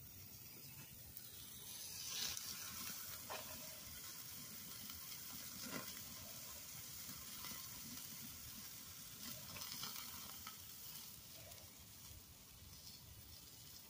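Steaks sizzling on a charcoal kettle grill, with a few sharp pops and crackles along the way.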